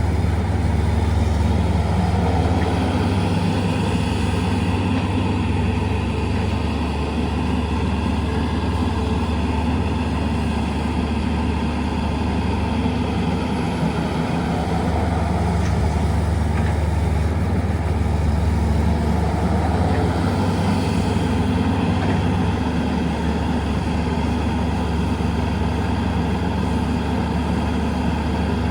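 Heavy diesel engines of earthmoving machines and trucks running steadily at a loading site, with a deep engine hum that swells slightly now and then.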